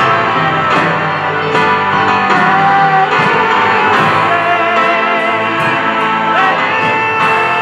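Live church praise band playing a slow worship song: drum kit keeping a steady beat of about one stroke every 0.8 seconds under keyboard and guitar, with long held notes.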